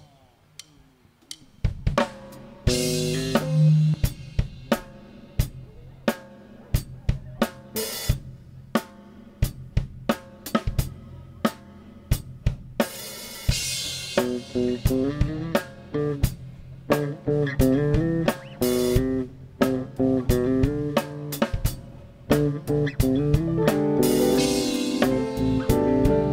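Live soul band starting an instrumental intro about two seconds in: drum kit keeping a steady beat with snare and kick hits and a cymbal crash every few seconds, under a bass line and electric guitar chords.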